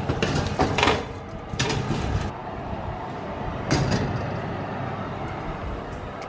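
Metal oven rack and baking tray clattering as a tray of cookies is slid into an oven: a few knocks and scrapes in the first two seconds, and one more a little before four seconds in.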